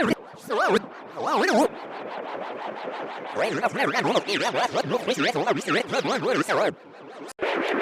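Warbling comedic sound effect whose pitch wobbles rapidly up and down, in two short bursts and then a longer run that stops shortly before the end.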